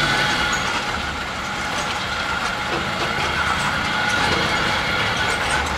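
Resort tram running along a paved path, heard from its back seat: steady engine and road noise while it moves.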